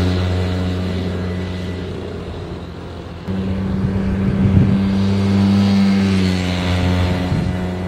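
Vespa GS150 scooter's single-cylinder two-stroke engine, fitted with a high-compression race cylinder head, running at high steady revs and fading as it moves away. About three seconds in the engine note comes back suddenly louder and holds, then drops a little in pitch near the end.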